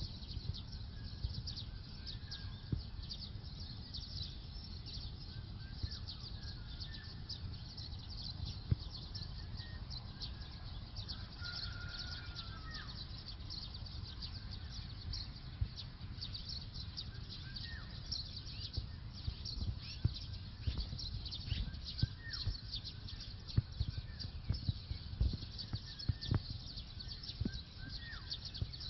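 Birds chirping outdoors: a dense run of rapid high chirps throughout, with a few clearer whistled calls now and then, over a steady low rumble.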